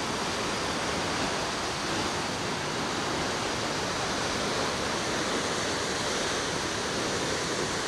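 Large waterfall of white water rushing, a steady, even noise with no breaks.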